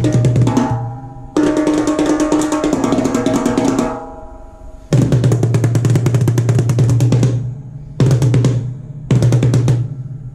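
Drum kit played through the 'Indian Subsonic Bass' sound kit: fast rolls and fills in several bursts with short gaps. The drums carry a deep, sustained bass tone under the strokes.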